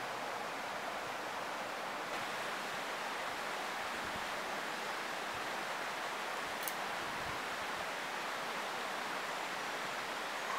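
Steady rushing of river water tumbling over and below a boulder weir, with a single light click about two-thirds of the way through.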